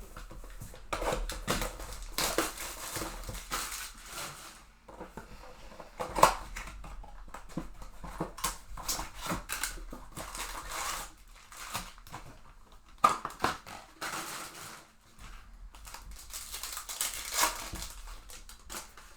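Trading card packs being torn open and handled: irregular crinkling and tearing of foil wrappers and rustling of cards, with two sharp snaps about six and thirteen seconds in.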